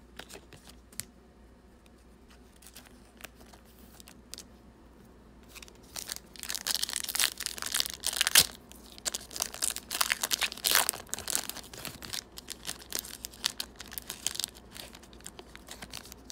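A sealed trading card pack's wrapper being torn open and crinkled, beginning about five seconds in and going on in quick crackling bursts; before that only a few light clicks of cards being handled.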